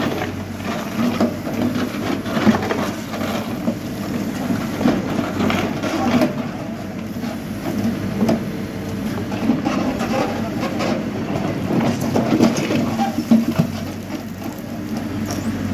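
Hidromek backhoe loader's diesel engine running steadily under hydraulic load, with the rear backhoe bucket scraping and knocking through stony soil and gravel in irregular bursts.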